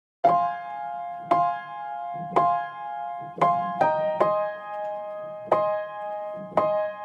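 Music: a slow piano intro, a chord struck about once a second and left to ring, moving to a new chord a little past halfway.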